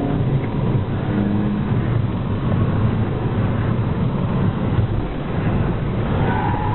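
Cabin noise of an Audi A3 1.4 TFSI under way: its turbocharged four-cylinder petrol engine running under load, with heavy road and wind rumble. A brief higher-pitched tone comes in near the end.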